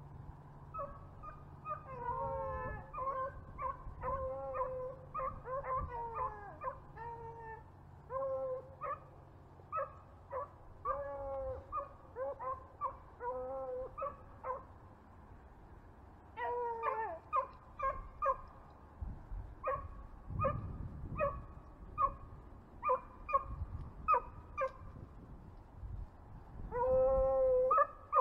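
Beagles baying while running a rabbit: many short repeated bawls mixed with a few longer drawn-out howls. The calls pause for about two seconds midway, then come back, loudest near the end.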